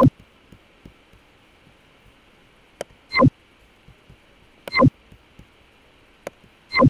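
Computer mouse clicks while drawing shapes: four short, loud thuds, one at the start, one about three seconds in, one near five seconds and one at the end, with fainter single clicks between them.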